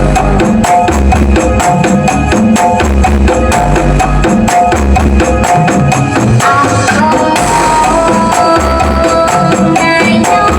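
Very loud music blasting from a "sound horeg" rig, a big carnival loudspeaker system: a heavy bass beat pulsing evenly under busy tambourine-like percussion and a melody line that shifts about seven seconds in.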